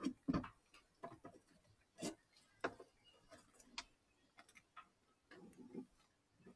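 Faint, irregular clicks and short rustles of hands wrapping thread-seal tape around a plastic pipe fitting.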